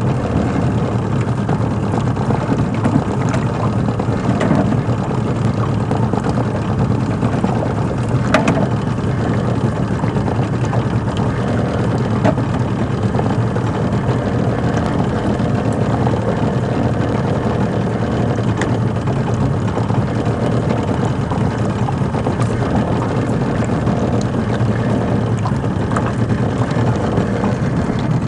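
Steady low rumble in a small open boat, with a few sharp clicks, one of them about eight seconds in.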